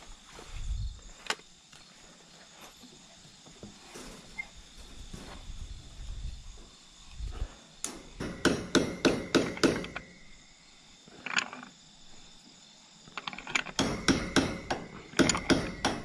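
Ratcheting wrench clicking in quick runs of about four clicks a second as it turns a gate hinge bolt into a wooden post: one run about eight seconds in and another near the end.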